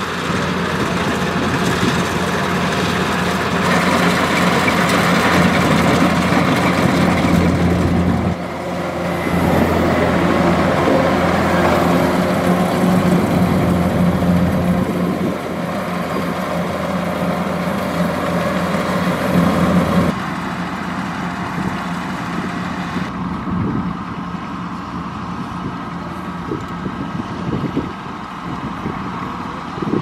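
Kubota rice combine harvester running steadily under load while it cuts rice: a continuous diesel engine drone with the rushing noise of its threshing machinery. The sound shifts abruptly about 8 and 20 seconds in.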